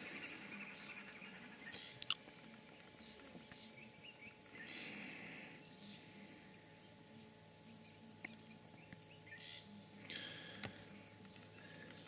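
Quiet bush ambience: a steady high-pitched insect buzz with a few faint bird calls, and a pair of sharp clicks about two seconds in.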